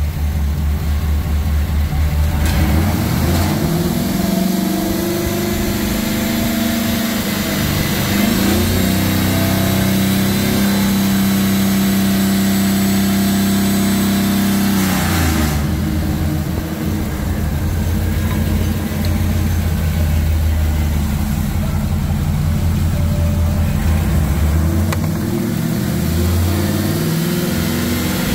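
2009 GM heavy-duty 6.0L gasoline V8 running. It climbs from idle a few seconds in, holds at a raised speed, and drops back to idle about halfway through.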